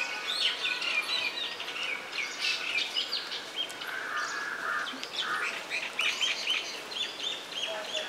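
Several small birds chirping, with many short, quick calls overlapping and repeating throughout.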